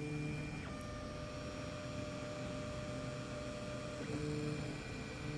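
Stepper motors of a Tronxy 3D printer humming steadily as the axes move, the pitch of the whine changing about a second in and again about four seconds in as the motion changes.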